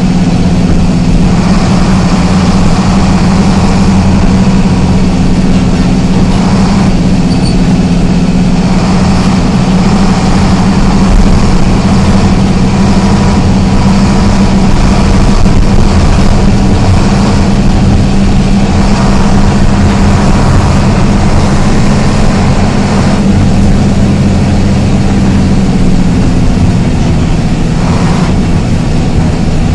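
Isuzu MT 133 RHD bus's diesel engine running under way, a loud, steady drone.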